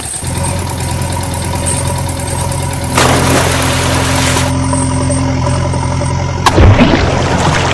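Engine idling steadily with a low, even drone, like a tractor's diesel. A hiss joins it about three seconds in and cuts off a second and a half later, and there is a brief louder swell near the end.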